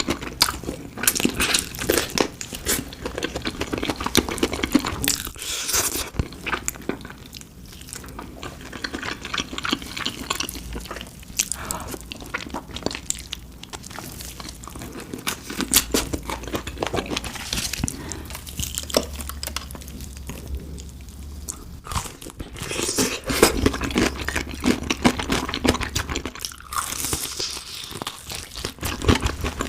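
Close-up crunching and chewing of crispy fried chicken: crackly bites and chews coming in bouts, with short quieter pauses.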